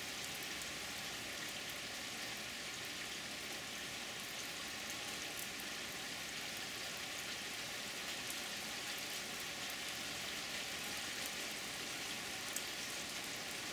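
Fairly hard spring rain falling steadily, an even hiss of drops on a wet wooden deck, with an occasional sharper drip tick.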